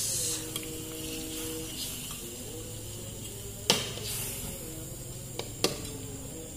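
Meat and sauce sizzling steadily in an aluminium wok on a gas burner. A metal ladle stirs and clinks sharply against the wok twice, about halfway through and again near the end.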